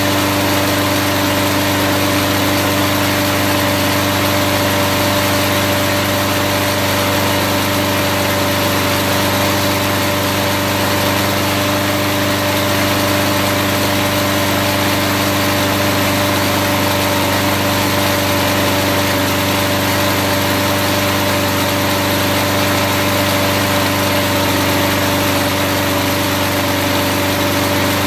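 Small single-cylinder push-mower engine running steadily at a constant speed, its crankcase lubricated with car wax instead of oil.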